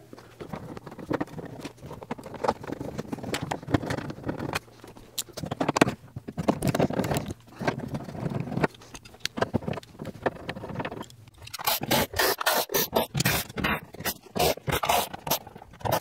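Scraping and knocking of door trim hardware being worked off a Dodge D100 pickup's door panel. About three-quarters of the way through comes a quick, even run of sharp clicks, about three a second, as a red-handled tool works on the panel screws.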